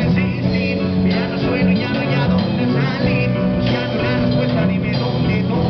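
Live rock band playing: electric bass, drum kit and electric guitar, with a male singer singing into a microphone.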